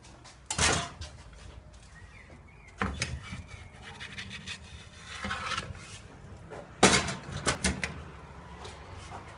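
A wooden pizza peel sliding a pizza into a small wood-fired oven, with scrapes and knocks. About seven seconds in comes the loudest sound, a sharp clunk as the oven's steel door is set back in place.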